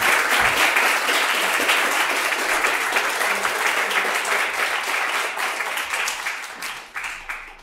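Audience applause: a room full of people clapping together, loud and steady, dying away near the end.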